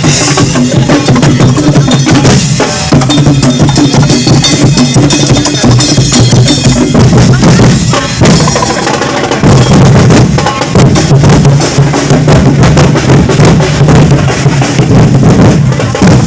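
Loud drum-heavy music with a steady beat over a deep bass line.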